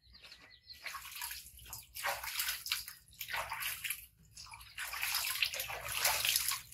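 Water splashing and sloshing in a plastic washtub as a baby monkey is dipped and scrubbed by hand, coming in repeated bursts, the longest near the end.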